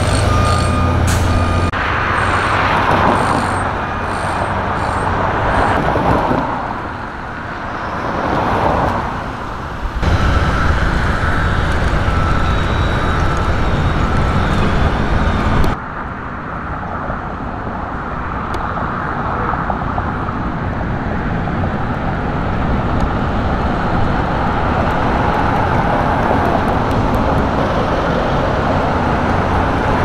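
Road traffic noise from passing cars and trucks. A couple of vehicles swell up and fade between about six and ten seconds in, and the sound changes abruptly a few times.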